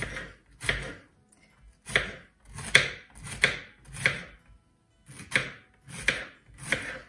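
Kitchen knife slicing a raw courgette (zucchini) into rounds on a cutting board. About nine crisp cuts at a slow, even pace, roughly one every 0.7 seconds, each ending in a knock of the blade on the board.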